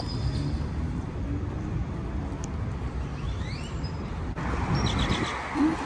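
Street ambience: a steady low rumble of traffic. About four seconds in the sound changes abruptly and a brighter hiss comes up.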